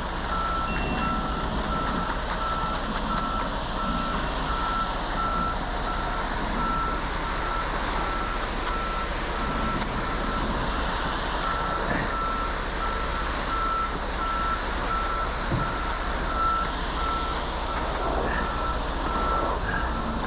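Vehicle backup alarm beeping steadily at about one beep a second, over a running engine.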